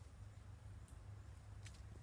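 Near silence: a faint steady low rumble, with two faint brief ticks, one about a second in and one near the end.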